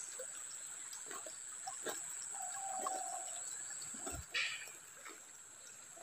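Faint streamside ambience: shallow water trickling over stones under a steady high-pitched drone, with a short whistle-like note near the middle and a brief bump and rustle about four seconds in.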